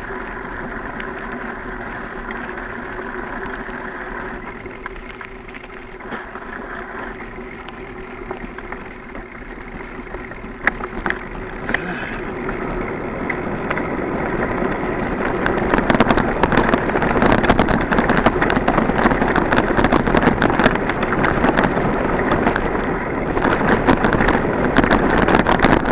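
Wind rushing over the microphone and a bicycle rattling over a rough dirt trail. It grows louder from about halfway through, with many sharp knocks and clatters over the bumps.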